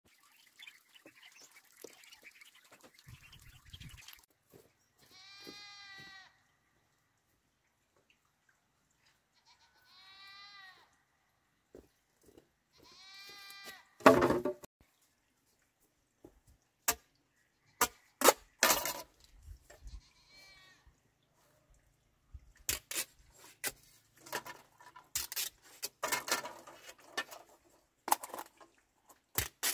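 Faint water splashing from ducklings swimming, then an animal calling three times in a wavering voice. About halfway through a loud knock as a bamboo pole is dropped, followed by scattered knocks of bamboo being handled and a machete chopping into a bamboo pole near the end.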